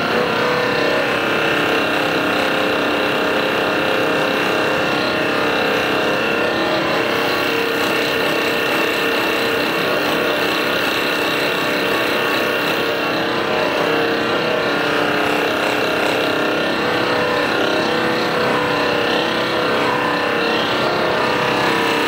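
Handheld percussion massage gun running steadily, its motor humming without a break while it is worked over the neck and upper back.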